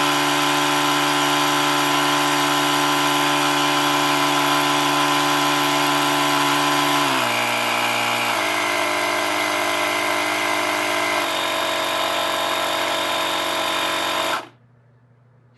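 Etenwolf Vortex S6 cordless tire inflator's compressor running steadily as it fills a small tire. Its pitch steps down three times in the second half as it slows near the set 28 PSI, so it does not overinflate. About a second before the end it shuts off suddenly on its own at the target pressure.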